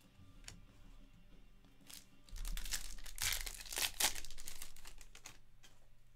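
Foil trading-card pack wrapper torn open and crinkled by hand. It gives loud crackling for about three seconds, starting about two seconds in, after a few light clicks of cards being handled.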